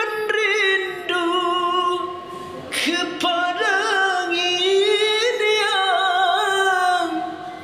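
A man singing unaccompanied in a high, ornamented dangdut style, holding long notes with a wavering vibrato and quick turns between pitches. There is a quick breath about three seconds in.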